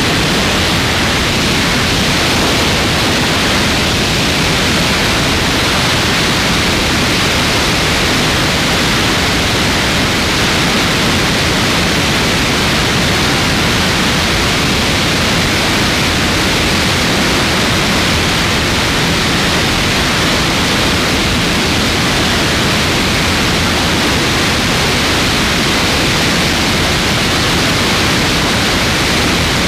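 Steady, loud rush of airflow over a camera mounted on a light aircraft's wing in flight.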